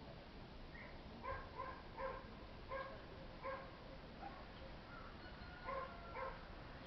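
A dog barking, a run of short barks: about six in quick succession, then a pause and two more near the end.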